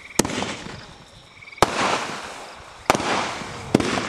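Aerial firework shells bursting: four sharp bangs about a second apart, each followed by a trail of crackling that fades away.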